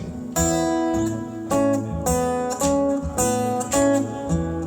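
Live guitar strumming the opening chords of a slow soul-blues song, each chord struck and left ringing, about one every half second to second.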